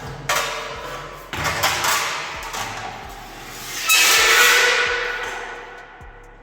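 Metal crashing and clanging, with ringing that dies away after each hit: a ceiling fan striking a metal-bodied electric heater. There are a few hits in the first two seconds and a heavier one about four seconds in, over background music with a steady beat.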